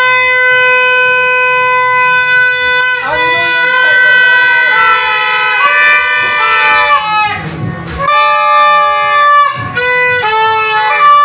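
Music on a wind instrument: one long held note for about three seconds, then a string of shorter notes at changing pitches.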